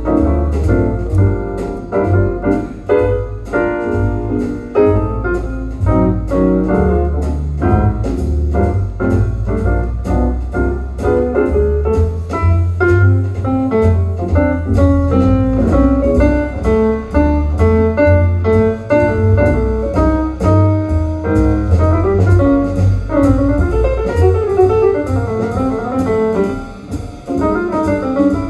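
Instrumental jazz with piano, double bass and drums keeping a steady beat, played from a vinyl record on a Kronos Pro turntable through a high-end hi-fi system and heard in the listening room.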